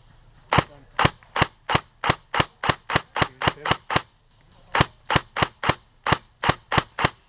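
Airsoft rifle firing rapid single shots, about three a second, each a sharp crack. It fires a string of about eleven, pauses briefly near the middle, then fires about eight more.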